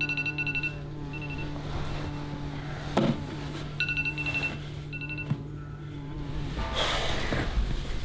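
Smartphone alarm going off in short bursts of rapid high beeps, stopping a little after five seconds in once a finger taps the phone to silence it. Soft music runs underneath, with a thump about three seconds in.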